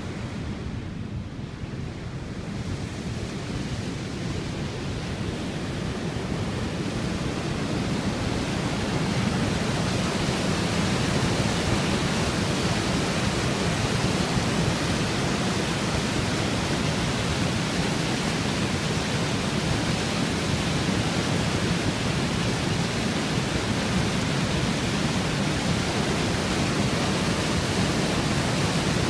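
Swollen river in flood rushing over a weir, a steady wash of churning white water. It grows louder over the first ten seconds or so, then holds steady.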